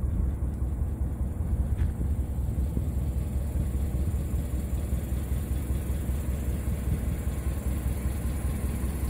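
A steady low rumble, with no distinct events.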